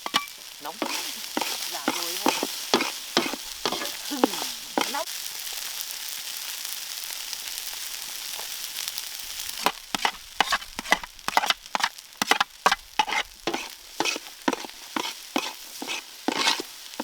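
Food sizzling in a hot pan while a spatula scrapes and taps against it in quick strokes. About midway the stirring stops for a few seconds and only the steady sizzle is heard.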